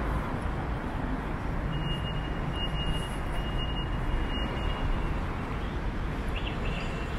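City street ambience: a steady rumble of road traffic. A thin, high steady tone sounds for about three seconds in the middle.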